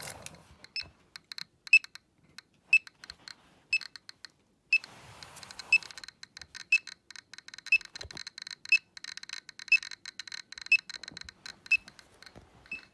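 Geiger counter clicking rapidly and at random, picking up beta and gamma radiation from a cat treated with radioactive iodine-131. A brighter, sharper pip sounds about once a second.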